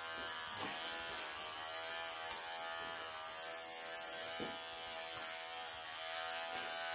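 Wahl cordless pet clippers running steadily with an even buzz as they are worked underneath the tight, matted pelts of a long-haired cat's coat.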